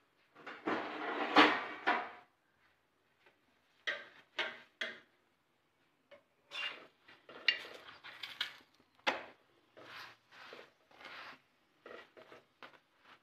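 Metal spatula scraping and knocking against a nonstick pan as an aloo paratha is pressed and turned, in short irregular strokes; the longest and loudest scrape comes about a second in.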